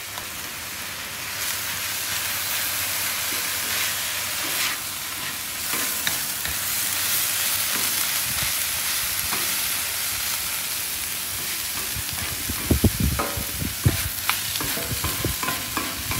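Shaved ribeye with peppers and onions sizzling steadily on a ceramic-coated flat-top griddle. Spatulas scrape and stir through the meat, and in the last few seconds they knock sharply and irregularly against the griddle surface as the meat is chopped.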